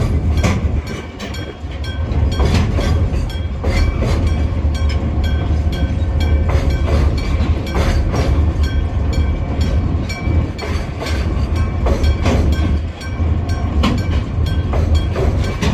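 Freight train rolling over a level crossing: a steady low rumble with the clickety-clack of wheels over rail joints at irregular intervals, while the crossing's electric bell keeps ringing.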